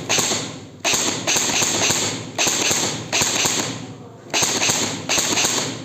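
Airsoft G36C electric rifle (AEG) firing short full-auto bursts, about seven in quick succession, each a rapid chatter of shots.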